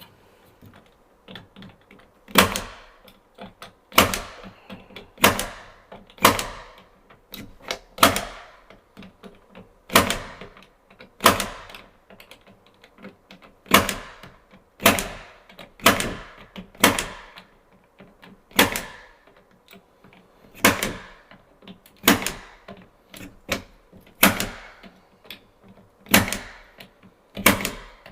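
Klein impact punch-down tool seating wires into a 110 block: about twenty sharp spring-loaded snaps, one every second or so, beginning about two seconds in. The punches are failing to cut off the excess wire ends.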